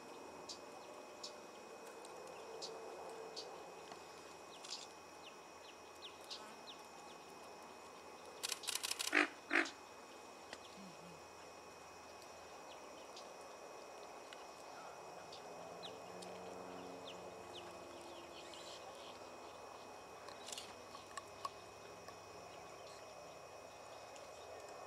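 Steady high-pitched chirring of wetland insects with scattered short ticks, broken about eight to nine seconds in by a brief cluster of loud, sharp sounds.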